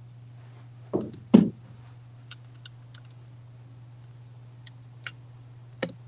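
Two sharp knocks close together about a second in, then several faint clicks and taps scattered through the rest, over a steady low hum.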